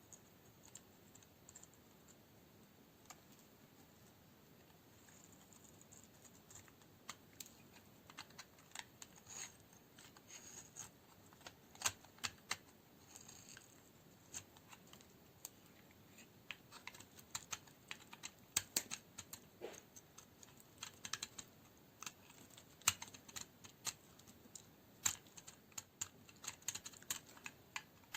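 A knife cutting dry Duru coniferous bar soap into cubes: irregular sharp clicks and cracks, sparse at first and coming thicker from about a quarter of the way in.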